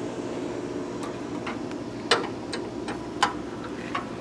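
Half a dozen scattered sharp clicks and taps of hands and tools working at the generator's radiator drain, the loudest about two seconds in, over a steady low background hum.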